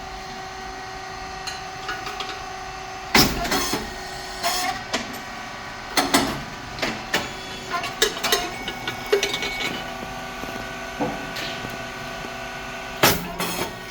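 Puffed rice cake machine running its cycle: a loud pop about three seconds in and again near the end as the hot moulds open and the rice cakes puff, with smaller clicks and knocks of the mechanism in between over a steady machine hum.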